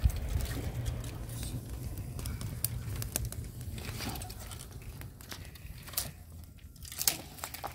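Open wood fire of dry twigs and branches crackling, with irregular sharp pops and snaps and a louder snap about seven seconds in. A low rumble sits under it for the first three seconds.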